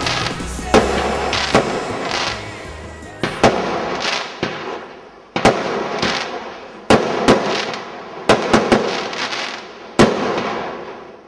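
Fireworks going off: about a dozen sharp bangs at irregular intervals, each followed by a crackling fizz. The sound dies away at the end.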